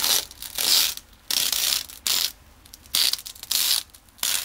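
Masking tape being peeled off brick and a door frame beside a wet silicone bead, coming away in a series of short ripping pulls with brief pauses between them.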